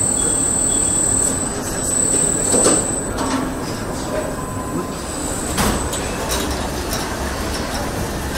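Automated car assembly-line machinery running: a steady mechanical din with a high thin whine that stops about a second in, and a few sharp metallic clanks and squeals.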